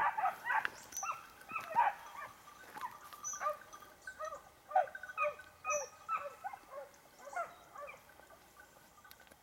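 Dogs barking in short, yappy clusters that thin out toward the end. Over them comes a small bird's thin, high call, repeated a few times a couple of seconds apart, which the recordist tentatively takes for a yellow-browed warbler.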